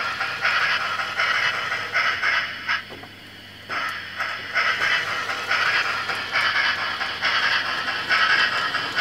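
OO gauge model steam locomotive and wagon running over Peco points and double slips, its wheels and motor making a rattling scrape that comes and goes in short surges. There is a brief lull about three seconds in, where the locomotive stops and reverses.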